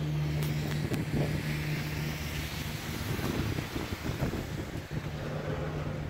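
Ride aboard an open-air Doppelmayr cabriolet gondola cabin running along the haul rope: a steady low hum under rushing wind noise on the microphone.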